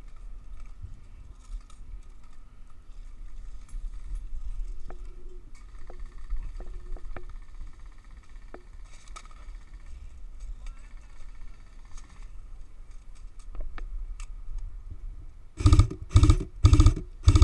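Airsoft gun fired in four short, loud bursts about half a second apart near the end, after a stretch of faint scattered clicks and rustle.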